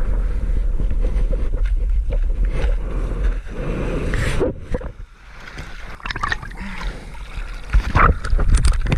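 Loud wind rumble on the microphone over rushing, gurgling water, easing about five seconds in, followed by irregular splashes.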